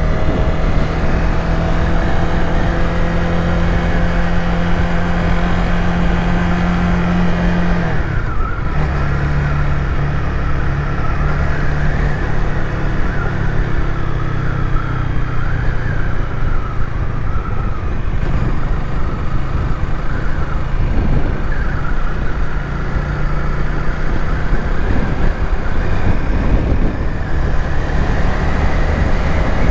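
Honda Rebel 300's single-cylinder engine running while riding in traffic, heard from the bike. The engine note briefly drops out about eight seconds in, then carries on at a slightly lower pitch.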